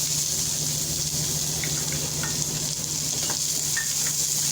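Chopped onion sizzling steadily in hot tempering oil with browned urad dal, just added to the pan, with a few light clicks of a spoon stirring it.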